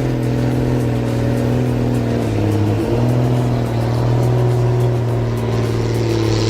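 A large engine running steadily under load, its pitch dipping briefly about two and a half seconds in and then picking up again.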